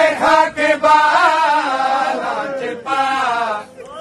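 Men chanting a Shia mourning lament (noha) in long, drawn-out sung phrases, with a short break near three seconds in and a dip just before the end.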